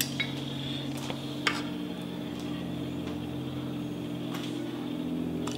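Dishes and utensils clinking and knocking a few times, short separate clicks over a steady low hum, as cooked tolma is arranged on a serving plate.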